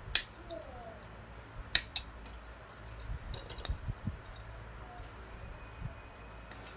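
Sharp clicks and light taps of hard plastic model-kit parts being handled or cut: two loud clicks, one right at the start and one about a second and a half later, then a scatter of lighter ticks.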